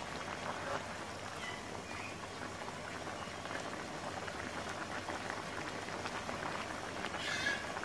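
Thick pork-belly braising sauce bubbling and crackling in a cast-iron pan, with a spatula stirring through the pork and eggs.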